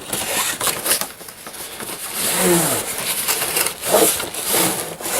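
Packaging crinkling and rustling as a newly unboxed tripod is handled, with irregular clicks and light knocks. A brief low pitched sound rises and falls about halfway through.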